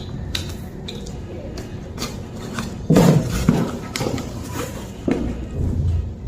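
Handling noises: scattered light clicks and knocks, with a louder cluster of dull thumps about three seconds in and again near the end.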